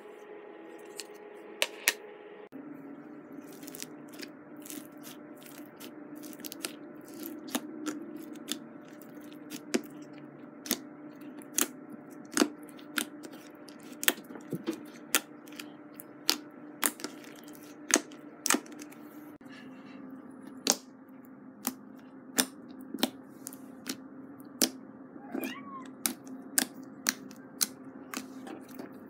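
Glossy white slime with small coloured beads mixed in, squeezed and pressed by fingers, giving sharp clicky pops, sometimes two or three a second, over a steady low hum.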